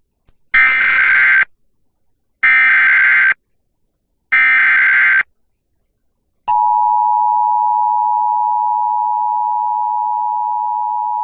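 Emergency Alert System activation tones: three roughly one-second bursts of SAME header data, each followed by about a second of silence, signalling the start of a severe thunderstorm warning. About six and a half seconds in, the steady two-tone attention signal begins and holds.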